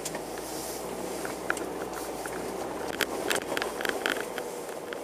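A car driving slowly, its engine and road noise a steady hum, with scattered sharp clicks and rattles, thickest about three to four seconds in.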